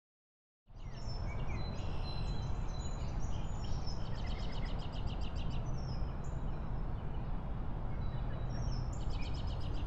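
Small birds chirping and trilling again and again over a steady low rumble of ambient noise, which starts suddenly after a moment of silence.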